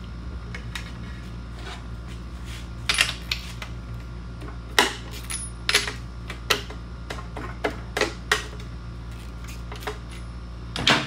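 Socket ratchet clicking and metal tool clinks in irregular sharp bursts as the spark plugs are loosened and removed from a 1972 Johnson 6 hp outboard's cylinder head, the loudest clink near the end. A steady low hum runs underneath.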